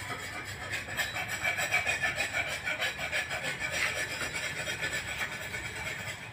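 Rapid, even rasping or scraping strokes, about five a second, like a hand tool being worked against wood.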